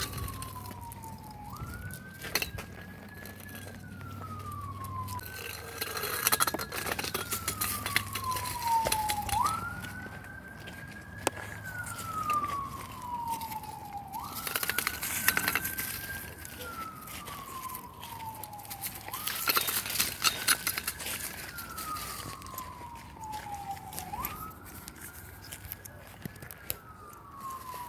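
A siren wailing in a repeating cycle: the pitch rises quickly, holds, then falls slowly, about every four to five seconds. Dry leaves crackle and crunch underfoot now and then.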